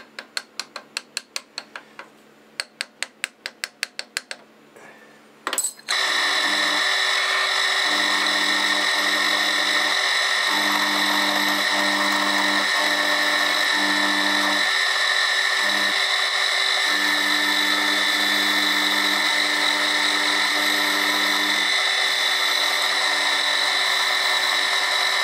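Brass hammer tapping mild steel clamp blanks down into a milling-machine vise: two quick runs of light taps. About six seconds in, the milling machine starts, and its end mill cuts steadily through the stacked steel blanks with a continuous whine.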